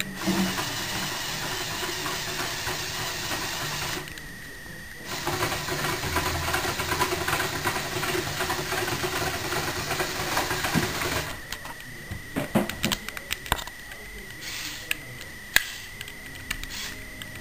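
Electric motors and plastic gear trains of a Lego Mindstorms NXT robotic arm whirring as the arm moves. The whirring stops briefly about four seconds in and stops again about eleven seconds in, after which the gears give scattered clicks and ticks.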